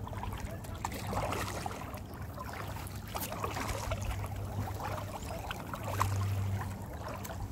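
Water trickling and splashing around a kayak as the paddle dips and drips, with a low steady hum underneath.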